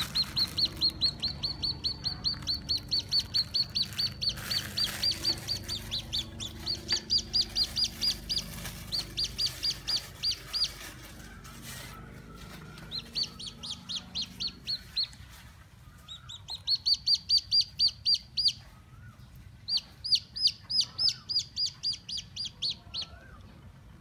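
Newly hatched chick peeping, short high peeps at about five a second, in runs of several seconds broken by brief pauses.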